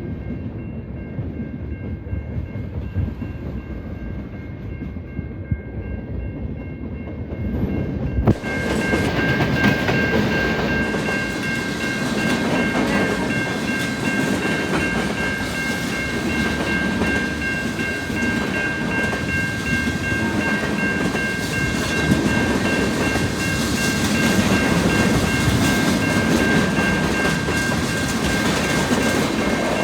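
A train running past on the rails, its wheels and cars clattering, much louder from about eight seconds in as it draws close. A steady high tone sounds throughout.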